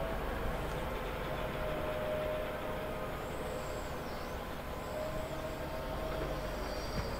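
Wheel loader's diesel engine running steadily during snow clearing, with a faint whine that comes and goes.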